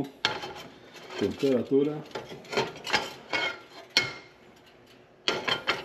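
Black wok being shifted and tilted on an electric coil burner to spread the heating oil: a scatter of metal scrapes and knocks of pan against burner, with one sharp click about four seconds in.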